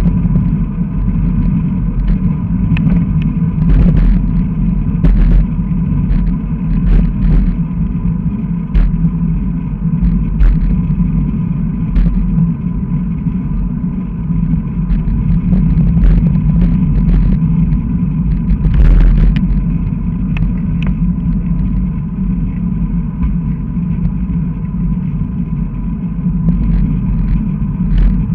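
Wind buffeting and road vibration picked up by a bicycle-handlebar-mounted camera while riding: a loud steady low rumble, with frequent short knocks as the wheels run over the cracked, patched asphalt.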